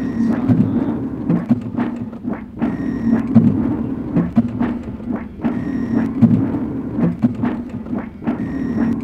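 Printing-press machinery running: a steady low hum with many knocks and thuds, and a cycle that repeats about every three seconds, each time with a short high ring. The press sounds are looped and arranged as experimental music.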